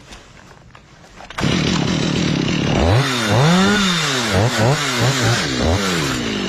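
Chainsaw comes in suddenly about a second and a half in and is revved up and down several times, its engine pitch rising and falling.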